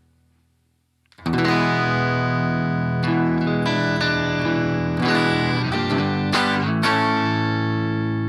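Electric guitar strumming chords through a BOSS GT-1000 amp model and Two Notes Cab M, a low-gain Fender Twin-style tone. After about a second of near quiet the chords come in and ring out, changing every second or so.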